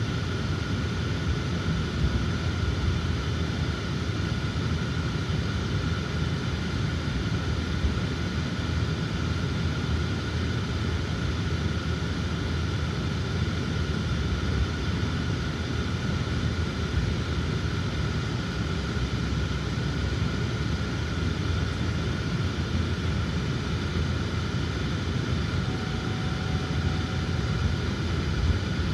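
Car cabin noise while driving: a steady low rumble of road and engine noise with a thin, constant high whine above it.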